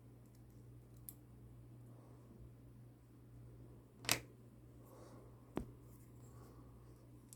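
Small metal clicks from the Paasche H airbrush parts and the wrench being worked to loosen its hex nut: a faint tick about a second in, a sharp click about four seconds in and another about a second and a half later, over a low steady hum.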